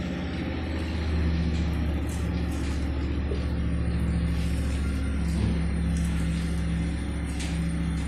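A steady low mechanical hum, like an engine running, with a few faint clicks over it.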